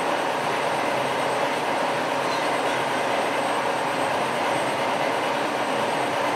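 Heavy industrial machinery running steadily: a dense, even noise with a few held tones, changing abruptly at the very end.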